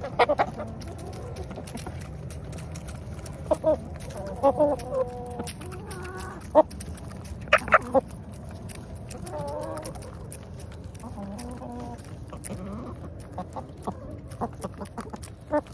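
A flock of domestic chickens clucking in short, scattered calls while feeding on mealworms, with a few sharp clicks among the calls.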